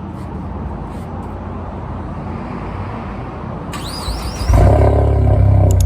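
Ford Mustang EcoBoost's turbocharged four-cylinder, running on an E85 blend tune, rumbles steadily, then gets much louder about four and a half seconds in as it is put under hard acceleration.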